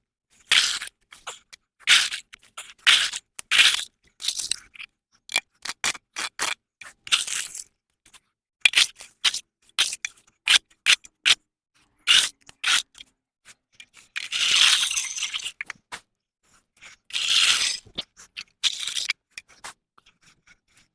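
A hand tool scraping wet mud and leaves off a path surface in a run of irregular short strokes, with two longer drawn-out scrapes in the second half.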